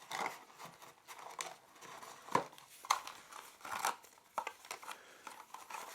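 Packaging rustling and crinkling, with irregular small clicks and taps, as earphones are pulled out of their box insert.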